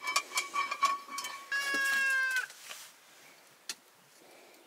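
A few light clinks with a ringing tone, then a steady, meow-like animal cry lasting about a second, followed by one faint tick.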